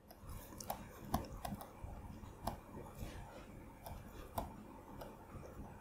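Faint, irregular tapping and clicking of a stylus writing on a tablet or pen display.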